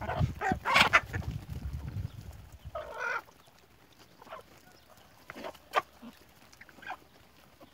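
A flock of domestic hens feeding, with scattered short clucks and a louder pitched call about three seconds in. A low rumble runs under the first two seconds, and a sharp click comes about six seconds in.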